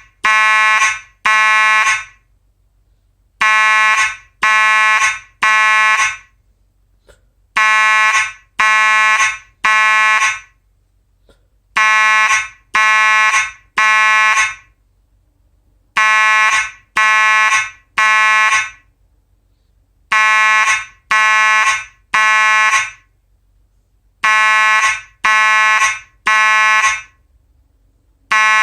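Simplex 2901-9838 fire alarm horn sounding the Code 3 temporal pattern, the standard evacuation signal. It gives three buzzy blasts about a second apart, then pauses for about two seconds, and repeats the cycle steadily.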